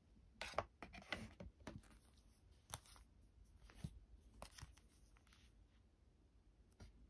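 Faint crinkling, rustling and tearing of parcel packaging being handled, with a few sharp clicks, mostly in the first five seconds.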